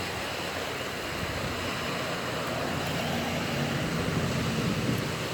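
Steady rush of rain and wind from a thunderstorm, an even hiss with no distinct events.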